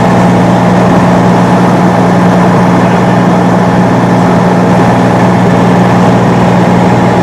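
Fire engine idling steadily: a constant, loud low engine hum with no change in pitch.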